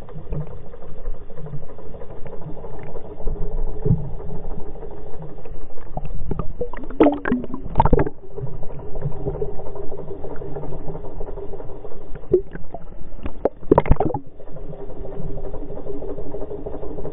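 Boat engine running steadily, heard underwater as a low, even hum, with two short bursts of water noise about seven and fourteen seconds in.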